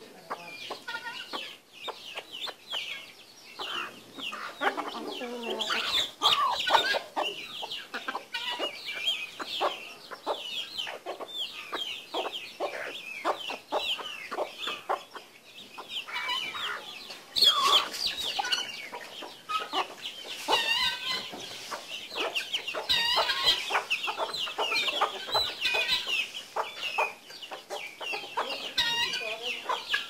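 Poultry feeding on scattered rice. A brood of guineafowl keets peeps constantly in high, quick calls, and hens cluck lower. Many short sharp taps run through it, from beaks pecking grain off the hard ground.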